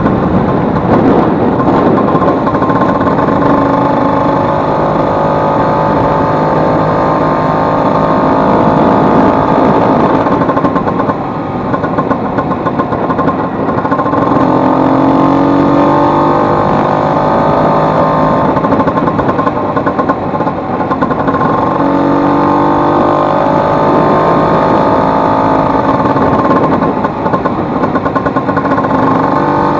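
Vespa 150's single-cylinder two-stroke engine running under throttle, its pitch repeatedly climbing and falling. The level drops briefly twice, about eleven and twenty seconds in. The engine has just been rebuilt after a broken elastic pinion (cush-drive gear) made it knock loudly.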